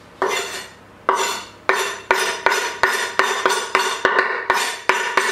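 Kitchen knife blade tapping and scraping against a tilted wooden chopping board, knocking chopped coriander off into a tajine dish. Each stroke is a sharp click with a short ring, a few spaced strokes at first, then a quicker run of about three a second.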